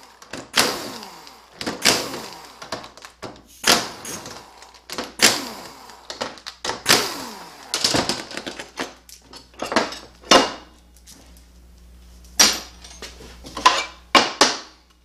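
Sharp metal knocks and clanks, about one a second with a short lull, as the accumulator housing of a 4T65-E automatic transmission is taken apart and its cover removed on the workbench.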